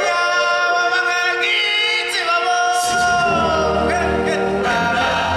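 Live stage-show music: a choir singing long held notes. A deep bass line comes in about halfway through.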